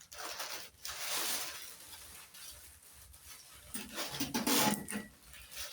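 Rustling and handling of gift wrapping and packaging, coming in bursts.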